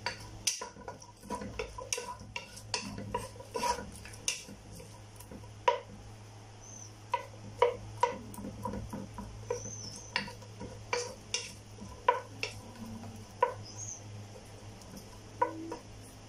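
Wooden spatula stirring chopped onions in hot oil in a nonstick pot, with irregular clicks and scrapes of the spatula against the pot over a faint sizzle.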